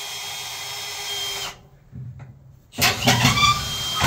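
Cordless drill running twice into a wooden fascia board. The first run cuts off about a second and a half in; the second starts near the three-second mark, rising in pitch as it spins up.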